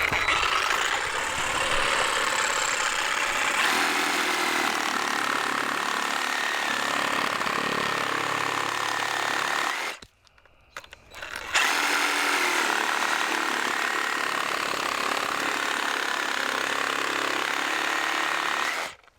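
Reciprocating saw with a Diablo 12-inch carbide-tooth pruning blade cutting through a wet dead pine limb, running steadily with a whine. It stops for about a second and a half near the middle, then runs again and stops just before the end.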